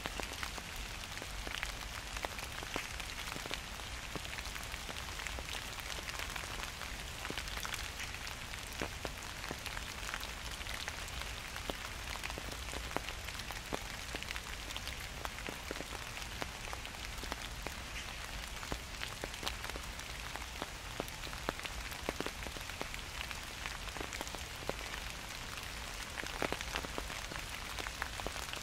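Gentle autumn rain falling steadily, with many individual drops ticking sharply on nearby surfaces over a soft, even hiss.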